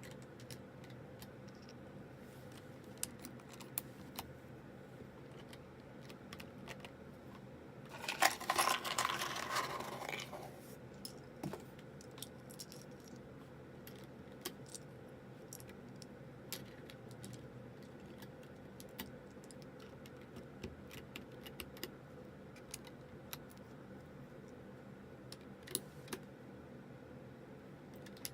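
Plastic keycaps being pulled off and pressed onto a keyboard: scattered sharp clicks, with a dense clatter lasting about two seconds around a third of the way in.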